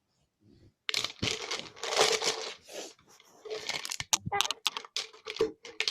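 Irregular crinkling and rustling, followed by a quick run of sharp clicks and cracks, as something crinkly is handled and crushed.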